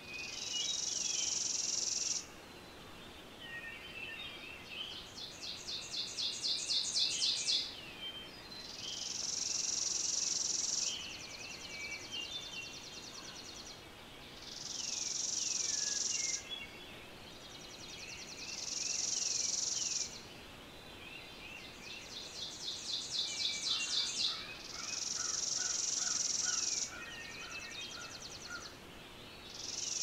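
High-pitched insect song repeating every few seconds: steady buzzes of about two seconds alternate with pulsed trains that grow louder. Small bird chirps run underneath, and a lower pulsed trill comes in near the end.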